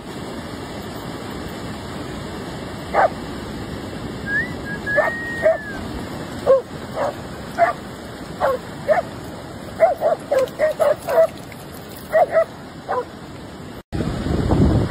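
Dogs barking and yipping in short separate bursts as they play, coming thickest about ten to twelve seconds in, over a steady hiss of surf. Near the end the barking stops and louder wind and surf take over.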